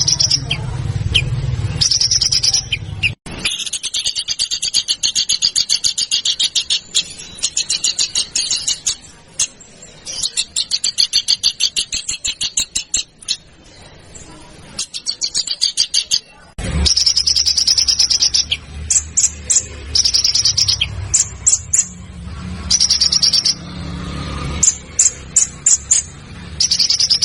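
Recorded songbird song: rapid trains of sharp, harsh notes in repeated bursts, with higher whistled phrases between. The recording changes abruptly twice, and a low hum runs under the later part.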